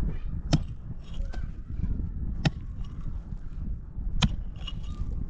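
Three sharp chopping blows, evenly spaced nearly two seconds apart, over a low background rumble.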